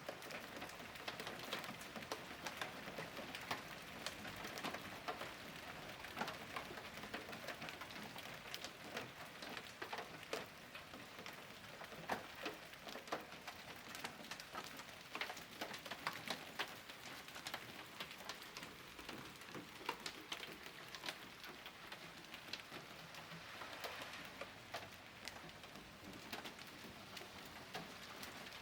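Hail coming down hard: a steady hiss of falling ice with many irregular sharp ticks of hailstones striking hard surfaces.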